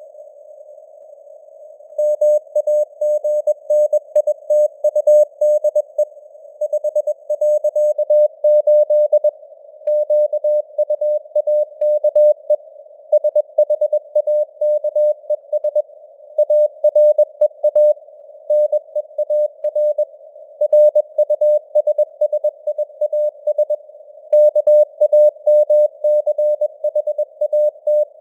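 Morse code (CW) sent at 21 words per minute: a single steady mid-pitched tone keyed on and off in dots and dashes, over a narrow band of hiss from simulated radio noise. The tone pauses for about two seconds at the start, with shorter gaps between words after that.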